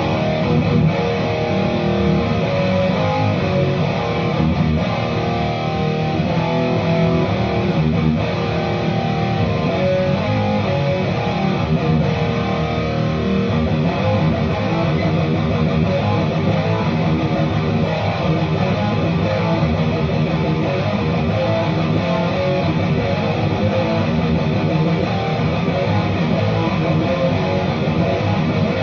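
Jackson X Series Dinky DK2X HT electric guitar with its stock Jackson active pickups, tuned to E flat, played continuously at a steady level. It runs through a Synergy preamp with an Engl Powerball module and a Boss Super Chorus, with no overdrive pedal.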